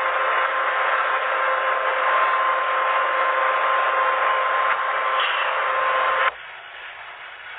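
A machine running loud and steady with a constant whine, stopping abruptly a little over six seconds in, after which only a quieter hiss remains.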